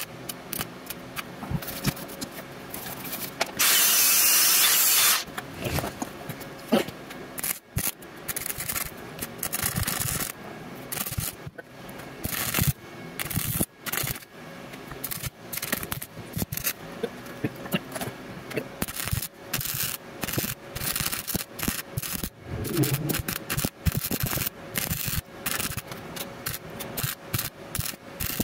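Wire-feed welding arc crackling in irregular runs on steel tubing. About three and a half seconds in comes a loud burst of hiss lasting under two seconds.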